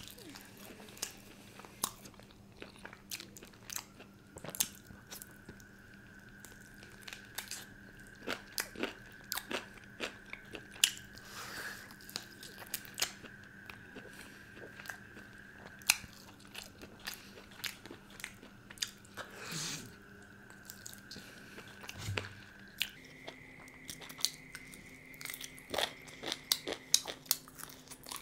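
A person biting into and chewing a murg methi malai chicken leg piece, with many short wet clicks and crunches scattered throughout.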